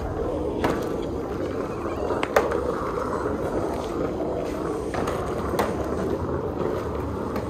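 Self-serve car wash foam brush scrubbing a soapy car body: a steady rough swishing of bristles and soapy water on the paint, with a few sharp knocks, the loudest about two and a half seconds in.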